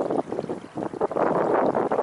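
Wind buffeting the microphone with water rushing along the hull of a Beneteau First 20 sailboat under way: an uneven rush that swells and dips.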